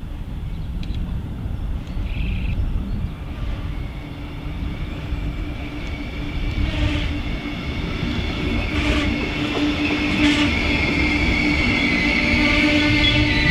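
Red DB double-deck regional train approaching and passing close by, its rumble growing steadily louder. There are a few sharp clicks about halfway through, and a high-pitched wheel squeal builds near the end.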